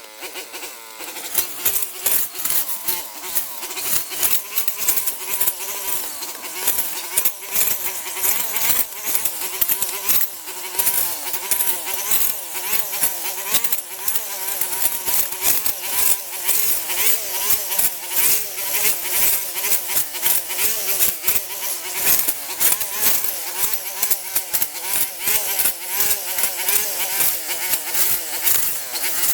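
A small engine-driven power tool running steadily, its pitch wavering up and down, with a rapid clatter over it.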